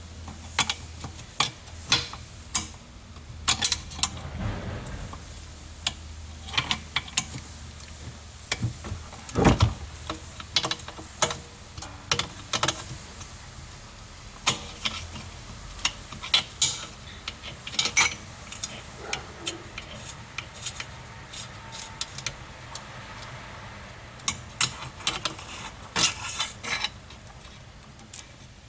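Metal tools and engine parts clinking and knocking as parts are unbolted and handled during engine disassembly: irregular sharp clicks throughout, with one heavier knock about nine seconds in.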